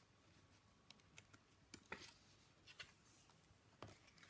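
Near silence with a few faint, scattered taps and clicks of a lift-the-flap picture book's card flaps and pages being handled and turned.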